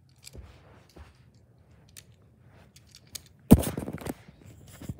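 Handling noise as the toy cars and the camera are moved about: scattered small clicks and taps, then about three and a half seconds in one loud knock followed by a short rustling scrape.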